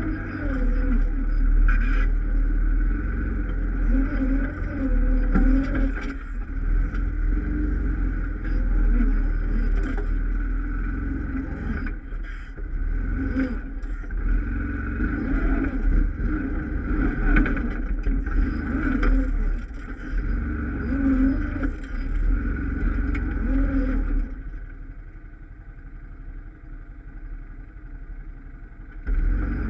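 ATV engine running under changing throttle over rough ground, its revs rising and falling. About 24 seconds in it drops to a quieter, steadier run for roughly five seconds, then picks up again just before the end.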